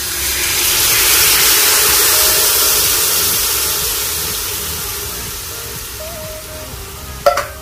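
Coconut milk poured from a can into a metal pot, a steady hissing splash that swells over the first couple of seconds and then slowly fades. A short knock near the end, over faint background music.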